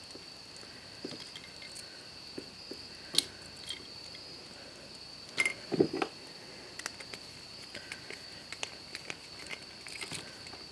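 Scattered light clicks and taps of a plastic plug, copper wires and a screwdriver being handled while the wires are fitted under the terminal screws. A steady high insect trill, like crickets, runs underneath.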